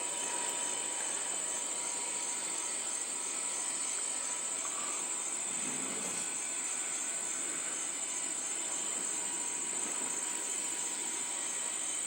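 Steady background hiss with a continuous high-pitched insect trill.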